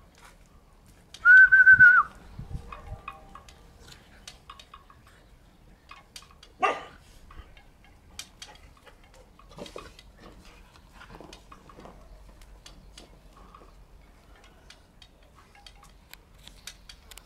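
Keeshond puppies at play: a loud, high squeal lasting under a second about a second in, then a single short yelp around the middle. Light scuffling and small knocks run in between.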